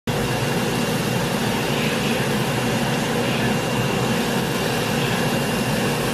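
Steady, loud mechanical drone with a faint high whine, cutting in suddenly at the start and holding level throughout.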